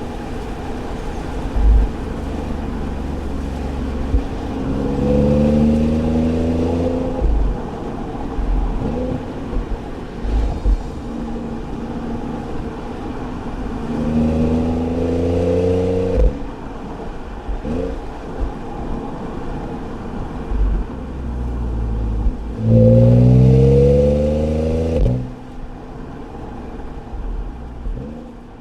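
Audi S4 B8's supercharged 3.0 V6 and exhaust on the move, pulling hard three times with the engine note rising each time, about five, fourteen and twenty-two seconds in; the last pull is the loudest. Between pulls there is a low road rumble with occasional bumps, and it eases off near the end.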